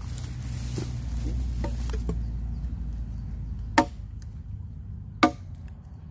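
A heavy parang chopping into a log: two sharp chops about a second and a half apart in the second half, after a few fainter knocks.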